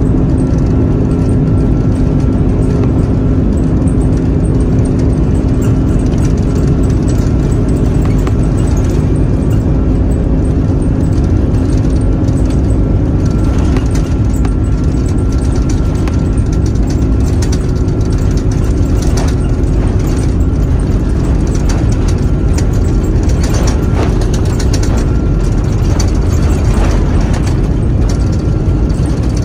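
Cabin noise inside an Airbus A330-200 rolling along the runway: a steady, loud rumble of jet engines and airflow, with a few steady hum tones that fade out about two-thirds of the way through. Frequent short knocks come in over the second half.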